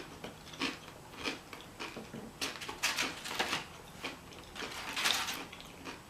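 Close-up chewing and wet mouth smacks of someone eating a burrito bowl, a string of short, irregular soft clicks.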